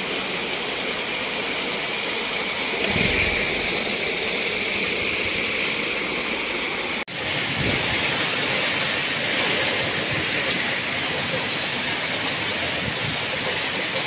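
Heavy rain pouring down in a steady rush, with a brief low rumble about three seconds in. About halfway through the sound changes abruptly to another downpour.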